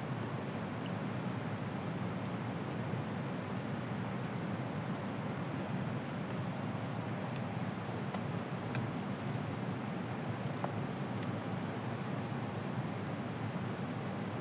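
Steady rushing of a fast-flowing river. A faint high pulsing chirr runs over it for the first few seconds, then settles into a steady high tone.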